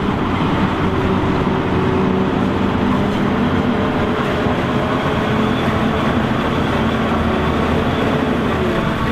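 Self-propelled forage harvester chopping maize while a Case IH Optum tractor hauling a silage trailer drives alongside, their diesel engines running together in a steady drone over the rush of the chopper.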